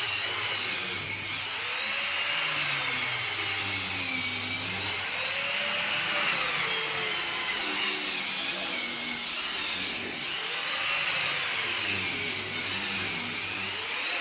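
A motor, like a power tool's, running steadily, its pitch slowly rising and falling every few seconds.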